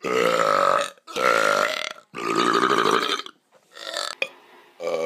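A person belching loudly in a rapid series: three long burps back to back, a shorter weaker one, and another beginning just at the end.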